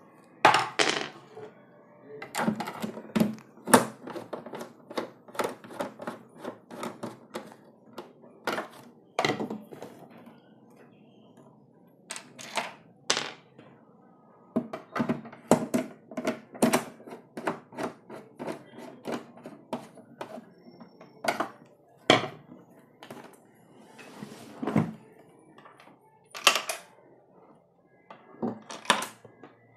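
Screwdriver and screws clicking and knocking against the purifier's back panel as its four screws are fitted and driven in, with the cabinet being handled: a long run of irregular sharp clicks and knocks, some with a short metallic ring.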